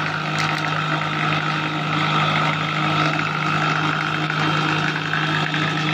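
Industrial wood planing machine running steadily, with an even motor hum and a regular low pulsing.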